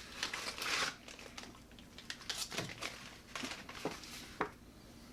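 MRE ration packets crinkling and rustling as they are handled, with a dense crinkle in the first second, then scattered small clicks and rustles.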